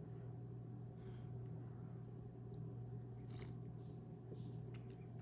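A steady low hum with a few faint, brief clicks and soft rustles scattered through it.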